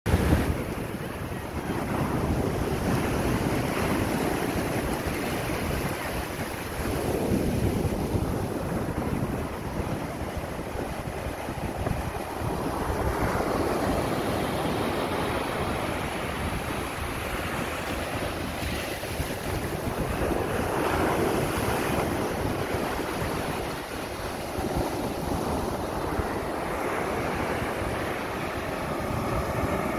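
Storm surf breaking on a fine-pebble shingle beach, the noise of the waves swelling and washing up the shore in surges every several seconds. Wind buffets the microphone with a low rumble.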